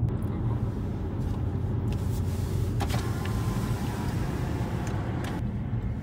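Car driving at road speed on a highway: steady engine and tyre rumble, with a couple of faint ticks about three and five seconds in.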